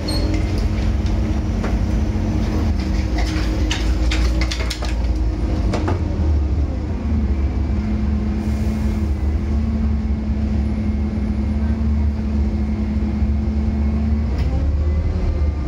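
Scania N230UD double-decker bus's five-cylinder diesel engine and drivetrain running as the bus drives along, heard from the upper deck: a steady low drone with a humming tone over it. Body and window rattles come in the first few seconds, and the tone rises near the end.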